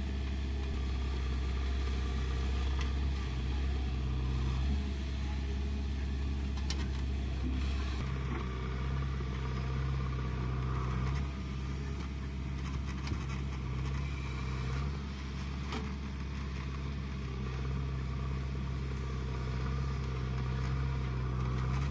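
JCB 3DX backhoe loader's diesel engine running steadily under working load, its note shifting a little now and then. A few short clicks sound over it.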